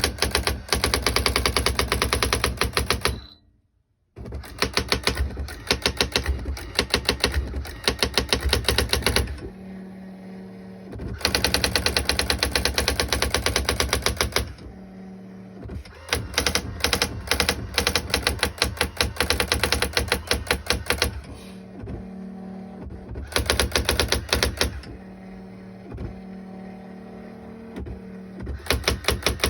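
Brother GX-7500 electronic daisy-wheel typewriter printing: long runs of rapid, evenly spaced print-hammer strikes. The runs are broken by a brief silence about three seconds in and by several short stretches of a steady low hum with only scattered strikes.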